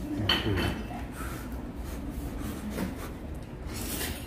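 Someone eating noodles: a slurp near the end over the low hum of a restaurant, and a short knock or click about a third of a second in.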